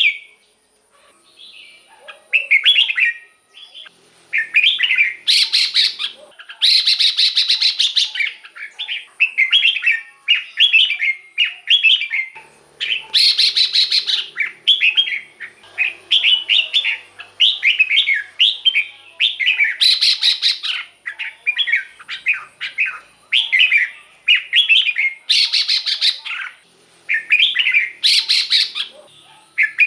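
Red-whiskered bulbul singing: a run of short, quick warbling phrases, with about six louder, harsh rasping phrases mixed in.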